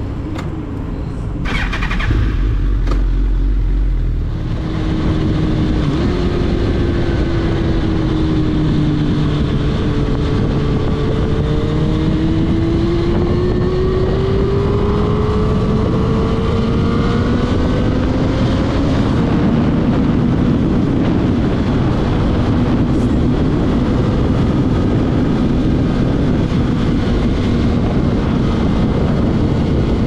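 Suzuki GSX-R motorcycle engine running under way, heard with heavy wind and road noise. Its note climbs slowly through the middle, then drops to a lower, steady note for the last third.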